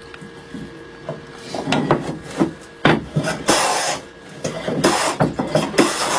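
Large Chinese wooden hand plane taking several strokes along a stool's timber stock, each a rasping swish of the shaving, with a few sharp knocks between strokes.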